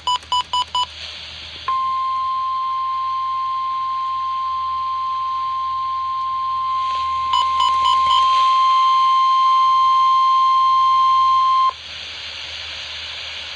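NOAA Weather Radio emergency alert: a quick run of short electronic beeps, then the long steady single-pitch warning alarm tone for about ten seconds, with a second short run of beeps over it partway through. It signals that a severe thunderstorm warning is about to be read. The tone cuts off abruptly near the end, leaving radio hiss.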